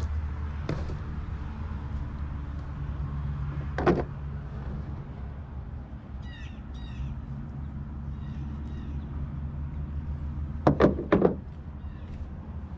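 Sharp knocks and clacks from handling a rooster carcass and tools on a plastic truck-bed liner: one about four seconds in and a quick run of three near the end, over a steady low rumble. A couple of short high chirps come in the middle.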